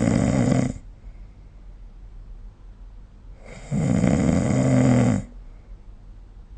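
A person snoring in the rhythm of sleep breathing: one snore ends just under a second in, and after a quiet pause a second snore starts about three and a half seconds in and lasts about a second and a half.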